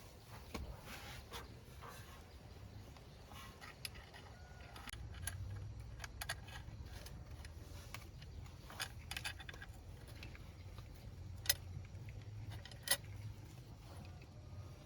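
Scattered light metallic clicks and clinks, as of hand tools or parts being handled on a truck under repair, over a low steady hum; two sharper clinks stand out near the end.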